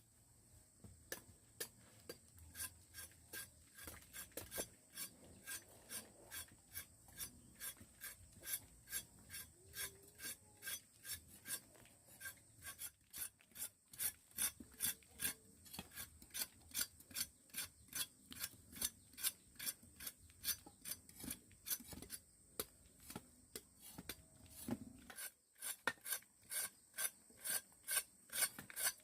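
Steady, rhythmic back-and-forth scraping, about two strokes a second, like a rasp or blade worked over a hard surface.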